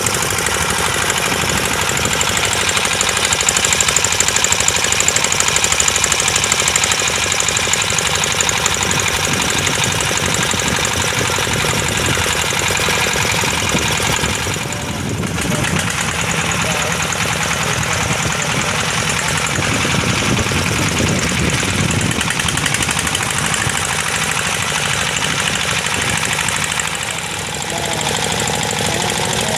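Engine of a wooden fishing boat running steadily under way, with a hiss of water and wind over it.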